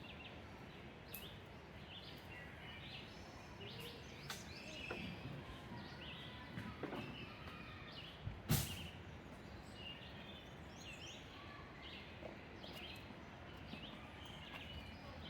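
Faint outdoor ambience: a steady background hiss with scattered short bird chirps, and one sharp click about eight and a half seconds in.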